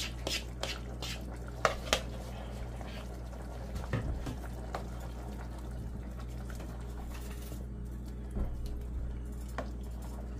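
A thin flour-and-water slurry poured from a bowl into a pot of simmering chicken stew, a spoon clicking and scraping against the bowl in the first couple of seconds. Then a ladle stirs the liquid stew, knocking lightly against the pot now and then, over a steady low hum.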